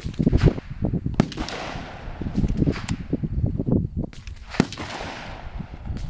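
Gunshots fired on a shooting range: about half a dozen sharp cracks at irregular intervals, each with a short echoing tail, the loudest about half a second in and near the end. A low rumbling noise runs underneath.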